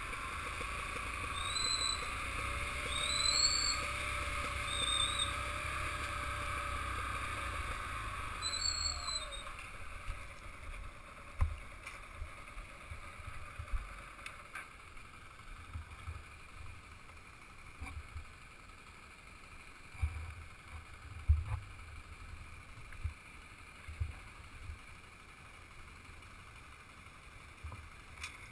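Low wind and road rumble from a motorcycle rolling along a rough forest track. For the first nine seconds a steady hiss sits over it, with a few short whistled chirps. After that it is quieter, with scattered low bumps.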